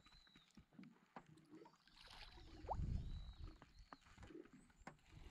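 Faint knocks, clicks and handling rustle from gear on a small aluminium fishing boat, with a louder low rumble about two to three seconds in. A few faint high, arching whistled notes come and go.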